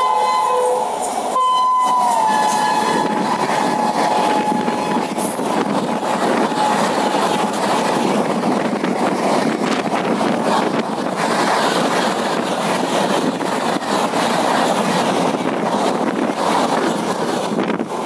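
WAP-7 electric locomotive sounding its shrill horn as it storms past at speed, with a short break about a second and a half in; the horn's pitch drops as the locomotive goes by. The horn then fades and the steady rush of the passenger coaches running past on the rails follows.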